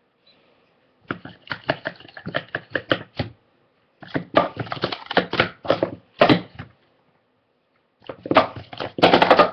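Plastic sport-stacking cups clattering in fast runs of taps as they are stacked up and down, in three quick bursts with short pauses between them, the last the loudest.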